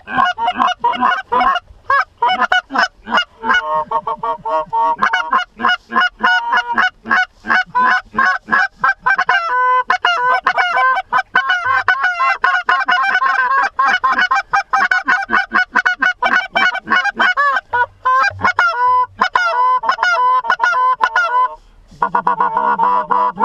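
Goose honking: a dense, continuous run of rapid honks and clucks, with a short break near the end.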